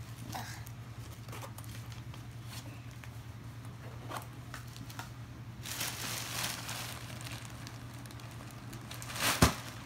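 Crinkling and rustling of a plastic shipping bag being handled, with small clicks and a louder rustle about six seconds in, then a sharp knock near the end, over a steady low hum.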